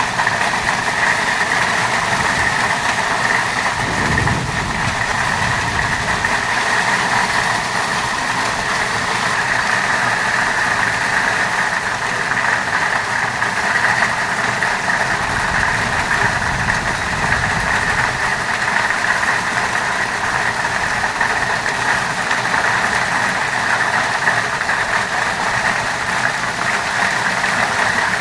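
Heavy rain with hailstones falling steadily, a dense continuous hiss that holds at the same level throughout.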